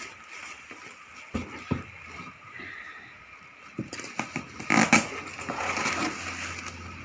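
Knocks and clatter of handling, loudest about five seconds in, then a small four-stroke engine, likely the Yamamax WB10XT water pump's, running steadily from about six seconds in.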